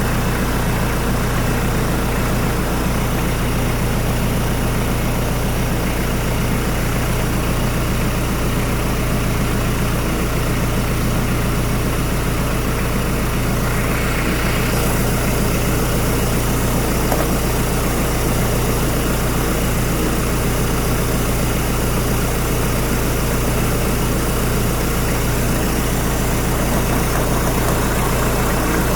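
Hyundai D4BH 2.5-litre four-cylinder turbo-diesel idling steadily while its oil pressure is checked.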